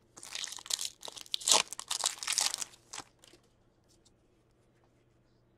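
Foil wrapper of a hockey card pack crinkling and tearing open while cards are handled, for about three seconds, then near silence.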